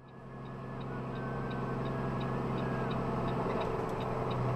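Vehicle engine and road noise heard from inside the cab while driving, a steady low drone that fades in at the start and grows slightly louder. A faint, quick, regular ticking runs under it.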